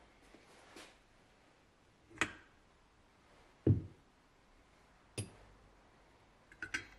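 Alternator pulley and its small metal parts being taken off the shaft by hand and set down on a workbench: a few separate knocks and clunks, the heaviest a dull thud about midway, then a quick run of small metal clinks near the end.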